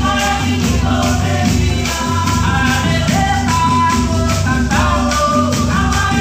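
Colombian Pacific marimba ensemble playing live: marimba, bass drums (bombos) and cununo hand drums keeping a steady beat, with women's voices singing over it.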